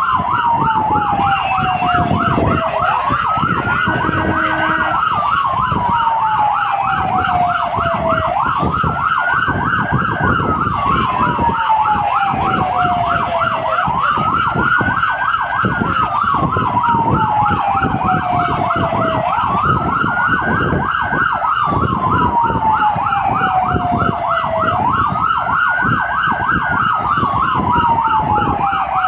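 Fire engine sirens heard from inside the cab while responding. A slow wail rises quickly and falls away about every five and a half seconds, over a fast yelp that runs throughout. Engine and road rumble sit underneath.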